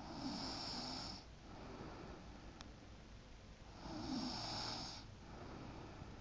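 Snoring: two rasping, hissy snores about a second long each, roughly four seconds apart, with a faint click between them.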